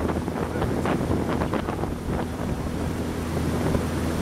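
Boat motor running with a steady low hum. Wind buffets the microphone and water rushes past the hull.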